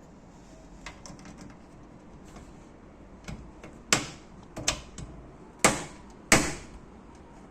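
A few light clicks, then four sharp knocks in the second half, each with a short ring-out.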